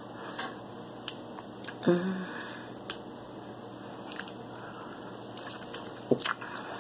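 Cooked king crab leg shell being cracked and picked apart by hand, scattered short sharp cracks and clicks, then the crab meat bitten and eaten from the shell near the end.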